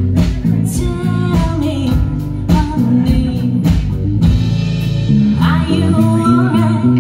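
Live rock band playing, with drums, bass and electric guitars under a woman's singing voice.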